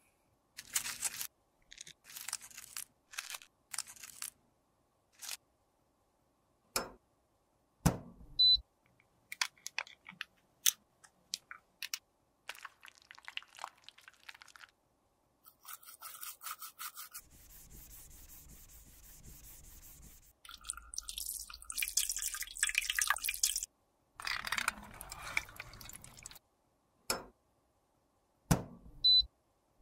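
Close-up sounds of cosmetics being worked with small tools: a series of scrapes and rubs broken up by sharp taps and clicks, with longer stretches of scraping near the middle and about two-thirds through.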